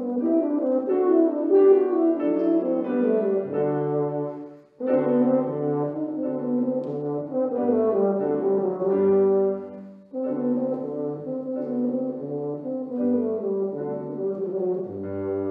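A valved low brass instrument played solo in phrases of sustained, changing notes, with two short breaks for breath about 5 and 10 seconds in.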